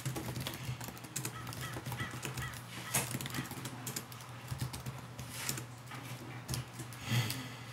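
Computer keyboard keys clicking in irregular typing, over a steady low hum.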